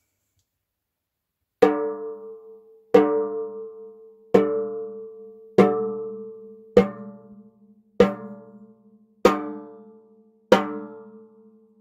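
Worldmax Black Dawg 14x5 snare drum, with a Remo Controlled Sound batter head, an Aquarian Classic Clear snare-side head and Pearl Ultrasound wires, given a quick rough tune, struck eight single times about a second and a quarter apart. Each stroke is left to ring out with a clear pitched ring that fades before the next.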